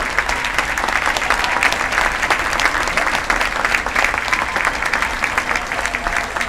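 Audience applauding: many hands clapping steadily and densely.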